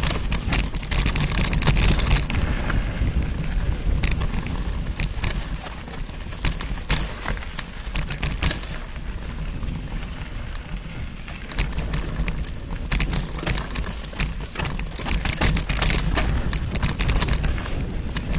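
Mountain bike riding down a rough dry dirt singletrack: a steady low rumble of wind and tyres on loose dirt, with frequent sharp rattles and clacks as the bike jolts over stones and ruts.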